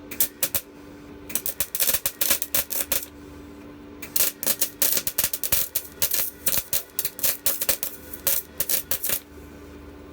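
Electric welder crackling in short runs of welding, stopping and restarting three times as a broken scooter part is welded back on, over a steady hum.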